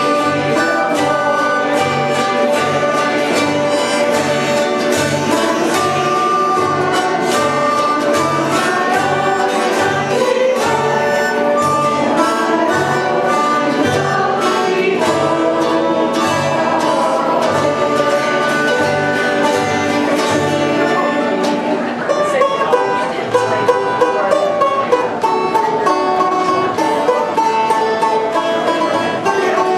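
Background music played on string instruments, with a steady low beat that drops out about two-thirds of the way through.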